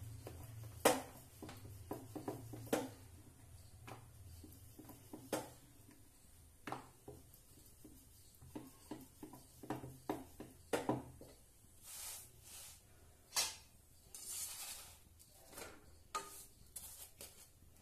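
Faint clicks and knocks of a wooden rolling pin working a paratha on a rolling board, with a metal spatula scraping in an iron kadhai near the end. A low hum stops about two-thirds of the way through.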